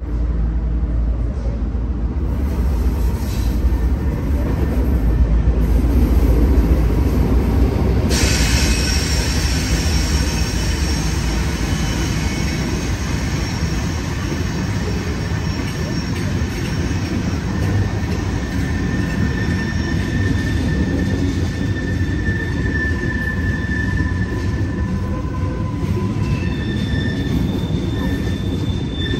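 Norfolk Southern freight train passing close by: the diesel locomotives' heavy low rumble, then from about eight seconds in, steady high-pitched wheel squeal from the covered hopper cars rolling through the curve, the tones shifting in pitch as different cars pass.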